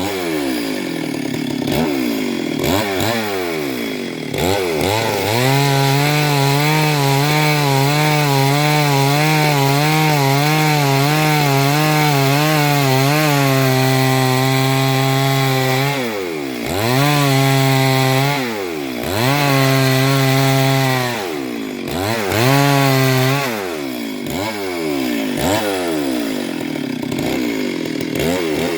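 Chainsaw cutting gamhar wood: the engine is held at high revs with a wavering pitch through a long cut, then falls and revs back up several times.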